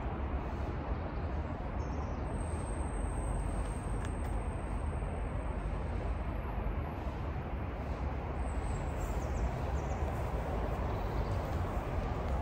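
Steady outdoor city background noise: an even low rumble of distant traffic, with no distinct events. A faint thin high tone sounds for a few seconds from about two seconds in.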